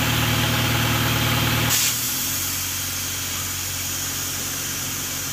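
Engine-driven air compressor running steadily with a rush of blowing air; about two seconds in there is a short hiss and the sound drops to a quieter, steady engine note.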